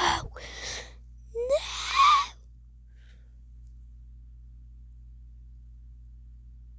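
A person gasping with wheezy, breathy sounds, then a short cry that rises in pitch about a second and a half in. After the cry only a faint, steady low hum is left.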